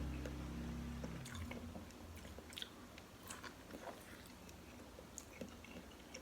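Close-miked chewing and biting of a soft, chewy beef meatball: scattered small wet mouth clicks and ticks. A low steady hum runs for the first second or so, then stops.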